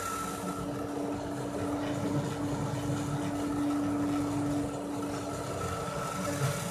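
Homemade CNC engraver at work: its handheld rotary-tool spindle runs with a steady whine while the salvaged laser-printer stepper motors drive the gantry, giving a rough mechanical whirr underneath.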